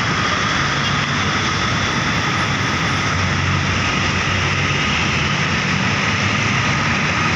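Steady noise of busy road traffic, with the engines and tyres of large vehicles such as buses passing close by.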